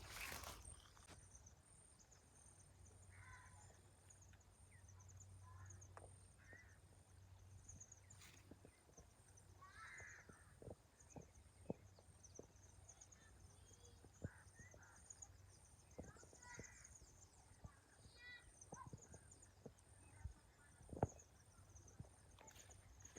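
Near silence: faint outdoor ambience with soft, repeated high chirping and scattered light clicks or knocks, one a little louder near the end.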